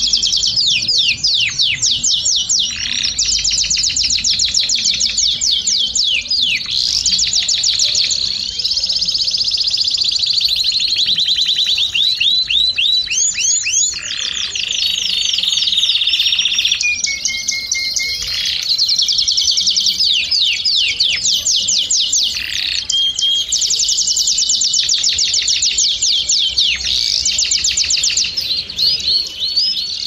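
Domestic canary singing a continuous song of fast rolling trills, quick repeated notes that switch to a new pattern every second or so, broken by a few longer held whistled notes about halfway through.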